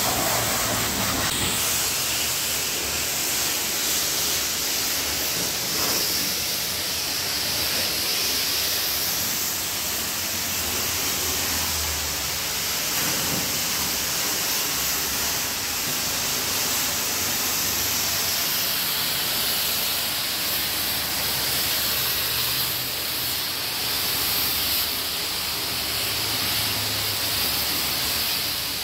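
Pressure washer wand spraying a high-pressure jet of water onto wet concrete and the underside of a car: a steady, loud hiss with water spattering off the surface.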